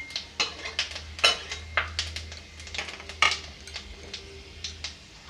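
Whole spices (black peppercorns, green cardamom, cumin seeds) crackling in hot oil in an aluminium kadhai, with irregular sharp pops over a light sizzle: the tempering (tadka) splutters as the seeds hit the hot oil.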